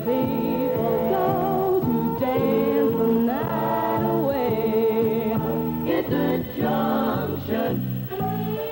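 Background music: a song with singing voices, the held notes wavering with vibrato, over a steady bass beat.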